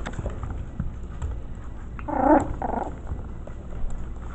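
A five-week-old Maltese-mix puppy gives a short, wavering play growl about two seconds in. Muffled bumps and rustling from puppies playing close by run underneath.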